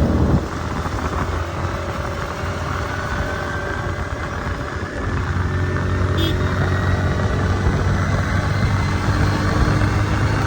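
A motor vehicle's engine running on the move, with a steady low hum, road and wind noise, and an engine note that drifts slowly in pitch.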